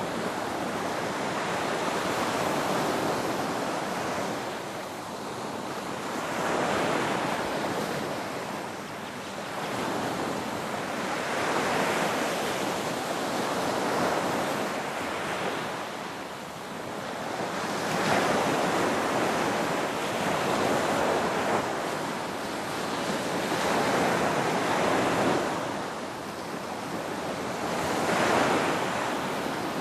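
Ocean waves breaking and washing ashore, the surf swelling and easing every few seconds.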